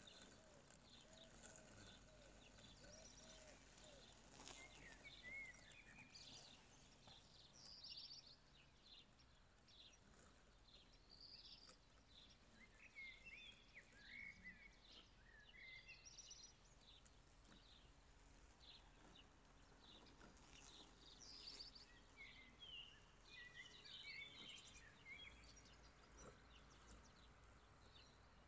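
Faint birdsong: many short chirps and trills from several birds throughout, over a quiet low hum.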